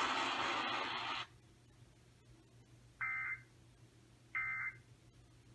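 A steady radio hiss cuts off about a second in. Then come two short, identical bursts of EAS digital data screech about a second and a half apart. They are the end-of-message tones that close an Emergency Alert System broadcast.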